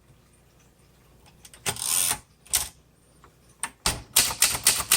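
1958 Cole Steel portable typewriter. After a pause comes a short rasping slide with a couple of clicks, then from about four seconds in typing resumes as a quick run of sharp keystrokes, about five a second.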